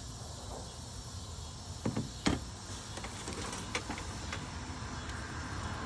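A few light knocks and clicks as objects are handled and set down, over a steady background of insects.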